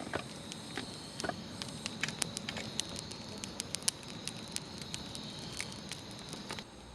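Wood campfire burning, with irregular sharp crackles and pops from the logs over a soft hiss. A steady high-pitched trill runs behind it, and the crackling stops just before the end.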